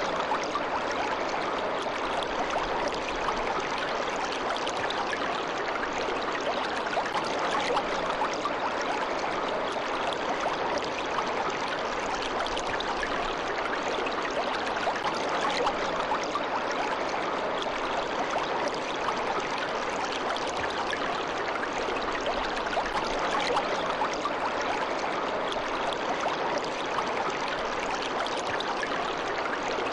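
Water of a stream babbling and rushing steadily, with no change in level.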